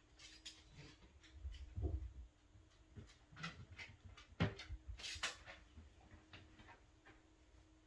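Light handling noises of tools and materials being moved: scattered clicks, knocks and scrapes, with a dull thump about two seconds in and a sharper knock about halfway through.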